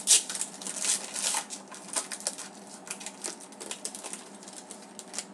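Hockey trading cards being flipped and slid against one another by hand: a quick, irregular string of flicks and rustles, the loudest just after the start.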